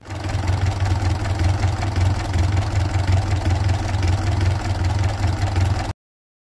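Ford Model A four-cylinder flathead engine of a homemade tractor, idling steadily. It cuts off suddenly near the end.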